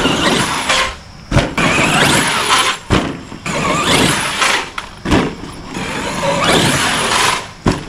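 Arrma Outcast 8S RC stunt truck's brushless electric motor whining up and down in bursts of throttle as it drives and jumps on dirt. There are about four sharp thumps of it landing and bouncing.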